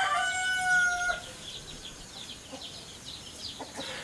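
A rooster crowing: the held end of one long call, which stops about a second in. Small birds chirp faintly after it.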